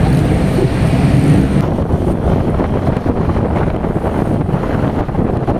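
Wind buffeting a motorcycle-mounted camera microphone at riding speed, a loud, steady rumble with the motorcycle's engine and road noise underneath.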